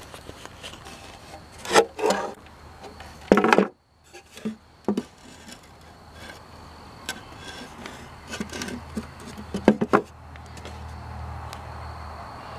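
Irregular rubbing, scraping and knocking on a hard plastic radio cabinet as it is handled and wiped clean, with a few louder knocks a little under 2 s in, around 3.5 s and around 10 s.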